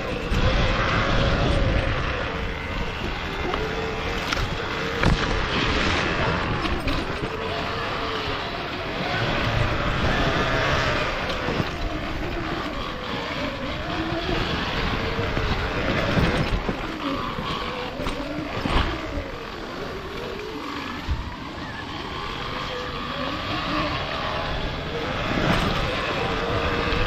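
Off-road motorcycle engine revving up and down while riding over rough, rocky trail, with occasional knocks from the machine hitting the ground.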